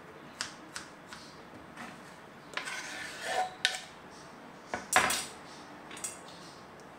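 Kitchen knife tapping on a wooden cutting board as a kiwi is sliced, then a scraping rustle as the pieces are pushed off the board into a ceramic bowl. A sharp clack about five seconds in is the loudest sound, with a smaller click a second later.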